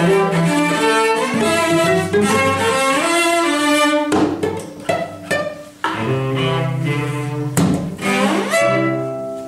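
Cello ensemble playing live: quick running passages, then a few short separated chords in the middle, and near the end an upward glide into a final held chord that fades as the piece closes.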